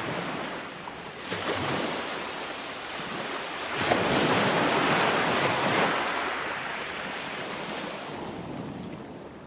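Ocean waves breaking on the shore: a smaller wash about a second and a half in, then a bigger wave crashing about four seconds in and hissing back out over the next few seconds, with some wind on the microphone.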